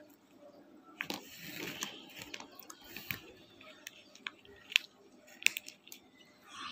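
Hard chunks of roasted Nakumat clay clicking and knocking against each other as a rubber-gloved hand sifts through them in a woven sack, in scattered sharp clicks with a few louder ones.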